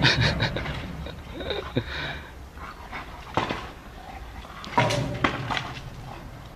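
A dog moving about, with scattered knocks and clicks and a couple of short whimpers about one and a half to two seconds in.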